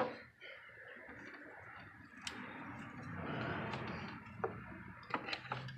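Faint rubbing, then a few light clicks near the end, as the number 4 ignition coil is worked loose and pulled out of its spark plug well.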